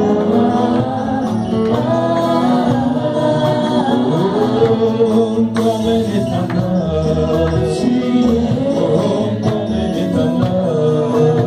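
Live gospel worship song: a woman singing into a microphone over instrumental accompaniment.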